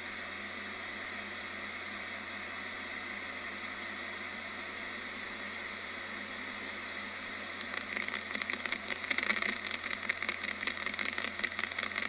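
Car exhaust heard through an electronic sound amplifier's listening wand: a steady hiss, then about eight seconds in a louder rapid pulsing as the wand reaches the exhaust leak.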